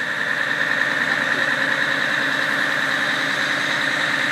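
Aerial ladder fire truck's engine running steadily to power the ladder hydraulics while the boom is being raised, with an even hum and a steady high whine.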